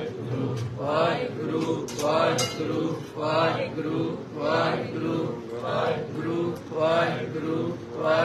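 A man's voice chanting a short devotional phrase over and over into a microphone, in a steady repeating rhythm over a constant low hum.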